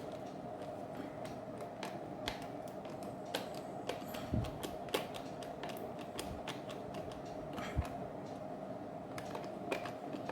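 Irregular small clicks and taps of hands handling the plastic housing of an aquarium air pump as its lid is closed, with one heavier thud about four seconds in, over a steady faint hum.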